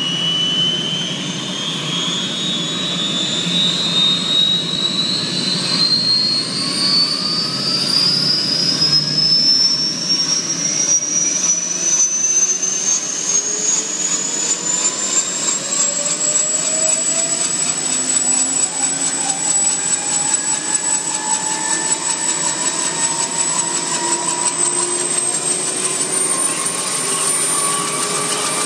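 Kaman K-MAX helicopter's turboshaft engine spooling up on the ground as its intermeshing rotors run up to speed. A high whine rises steadily for about fifteen seconds, levels off, then climbs again near the end, over a lower rising hum.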